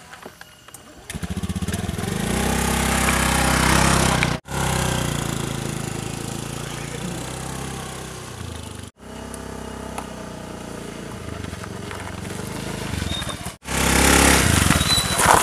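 Small motor scooter engine running as the scooter pulls away. It comes in about a second in and grows louder, and the sound cuts off abruptly three times.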